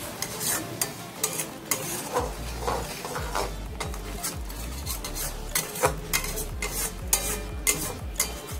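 Metal spatula scraping and stirring in an aluminium kadai, working hot water into fried spice paste that sizzles. Quick repeated scrapes, about two a second.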